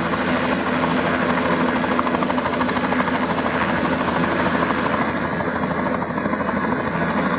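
Sightseeing helicopter running, its rotor beating in a fast, steady rhythm.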